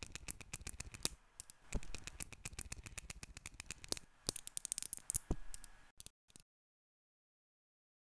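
Tiny neodymium magnet spheres clicking and clacking together in rapid, irregular bursts for about six seconds, ending with two separate clicks.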